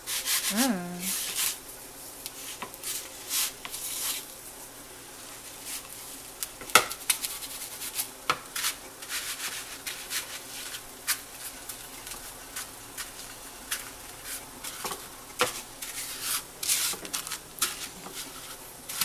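Pork chop being pressed and turned in a plastic bowl of crushed Cheez-It crumbs, giving scattered short rustles and scrapes, with one sharp knock about seven seconds in.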